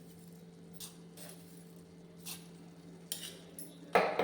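A spoon clinking against a metal pot as spoonfuls of coriander seeds are added to hot water. There are about five short, light clinks, and the last, near the end, is the loudest.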